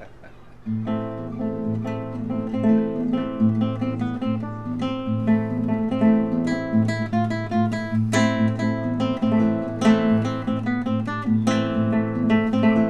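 Nylon-string classical guitar played fingerstyle, an improvised jam in A over a low, ringing A bass note. The playing starts about a second in, with many quick plucked notes.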